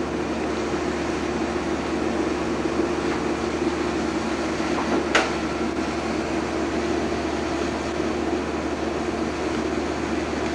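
Steady low mechanical hum and hiss, with one sharp click about five seconds in.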